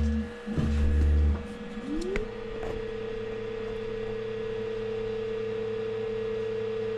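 Elegoo Saturn 4 Ultra resin printer's stepper motors moving during a print pause. Two short, loud low buzzes in the first second and a half, then a motor whine that rises in pitch and holds steady as the Z-axis lifts the build plate out of the resin vat.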